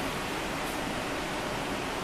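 Steady, even hiss of machine-shop background noise, with no distinct machine tones or strikes.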